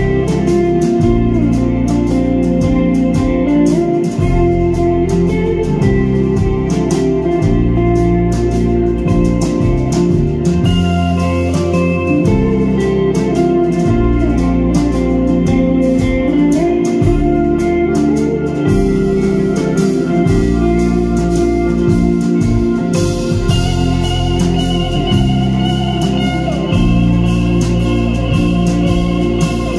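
Live rock band playing an instrumental stretch: held organ-like keyboard chords over electric guitars, low bass notes that change every couple of seconds, and drums.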